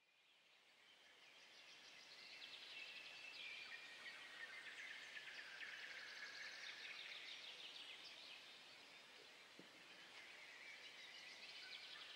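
Near silence: faint outdoor ambience that fades in after about a second, a thin high chirping in the background.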